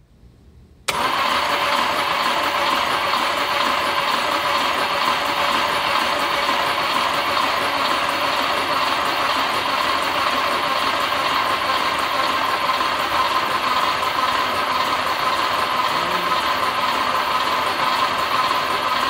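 Starter motor cranking a Jaguar E-type's XK straight-six engine with its spark plugs out. It starts abruptly about a second in and spins at a steady, even pace without firing. The engine is being turned over to build oil pressure before its first start.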